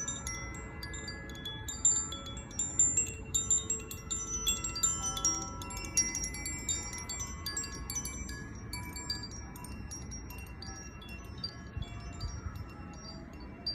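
Zaphir Sunray chime swung by hand, its tuned metal rods struck by the clapper in quick, irregular runs of overlapping, sustained ringing notes. The strikes thin out after about six seconds. A faint low rumble runs underneath.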